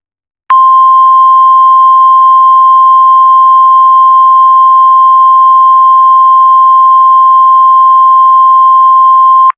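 A single loud, steady electronic alert tone of about 1 kHz, held for about nine seconds and then cut off. It is the weather-radio warning alarm tone that announces an emergency weather alert.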